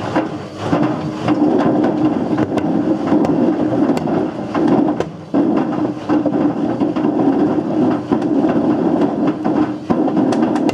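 Whirlpool WWDC 7210/1 washing machine drum turning with a brick tumbling inside: a loud, continuous rumble with a steady hum and many irregular knocks and clatters as the brick falls against the drum.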